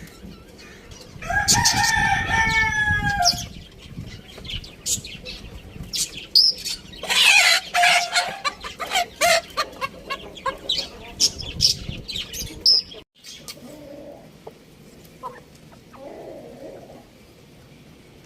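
A rooster crows once, about a second in, a two-second call. A noisier burst of calling follows around seven seconds in. Near the end there is soft clucking.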